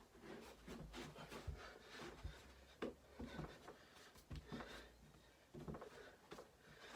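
Faint, irregular knocks and rustles of a person moving through a workout exercise.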